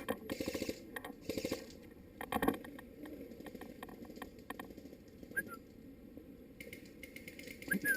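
Airsoft electric gun firing two short full-auto bursts of rapid clicks, followed by a single sharp crack about two and a half seconds in.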